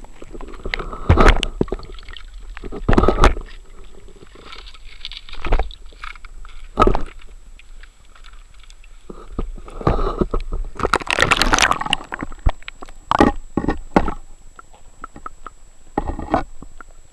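Handling noise from a handheld camera being moved in and out of shallow seawater: irregular knocks, scrapes and water sloshing, with a longer, louder rush of water about two-thirds of the way through. A faint steady high whine runs underneath.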